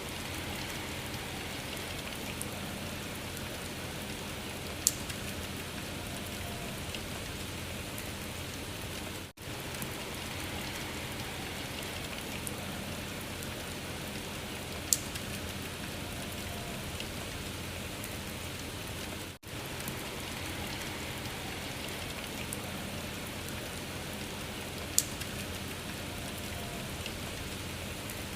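A steady rain-like patter and hiss, repeating as a loop about every ten seconds. Each loop has a brief dropout and one sharp crack.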